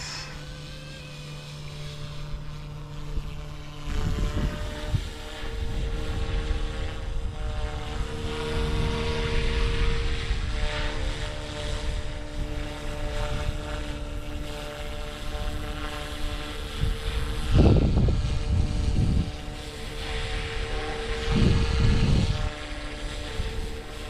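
Fly Wing FW200 electric RC helicopter in flight: a steady whine of the motor and rotor, holding several even tones. Wind rumbles on the microphone in gusts, strongest about four, eighteen and twenty-two seconds in.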